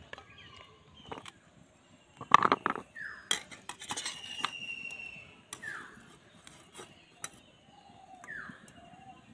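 A spatula clinking and scraping against a steel bowl and plate as sticky, syrup-soaked sweets are lifted out and set down: a handful of separate sharp clicks, the loudest about two seconds in.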